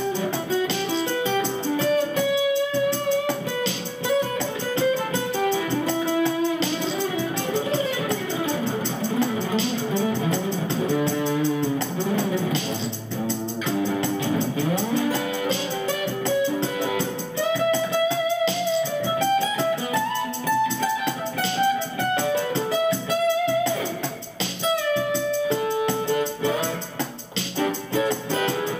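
Acoustic guitar played through a Bonsai overdrive pedal into a Cube-10 ten-watt amp on its clean channel, picking an instrumental melody. Notes slide up and down in the middle stretch.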